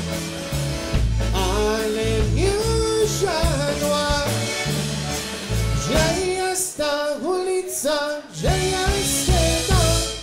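A live polka band playing a waltz, an instrumental stretch between sung verses: a lead melody line over bass and chords.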